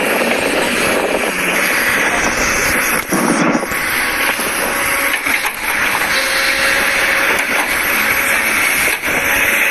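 Kobelco crawler excavator running as it digs and swings its bucket through earth: a loud, steady rushing noise with a brief dip a little after three seconds in.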